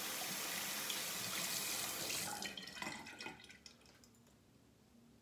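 Bathroom tap running into the sink basin, turned off about two seconds in, followed by a second or so of drips and splashes.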